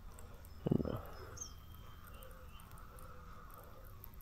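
Quiet outdoor ambience with a few faint high chirps, and one short low vocal hum from the man about a second in.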